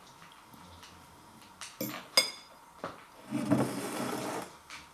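Small sounds of a man eating fried chicken: a few light clicks about two seconds in, one with a short ringing tone, then a rustling sound lasting about a second.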